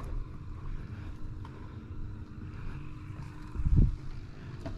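Low, steady rumble of wind buffeting the microphone, with one short, louder low thump about three and a half seconds in.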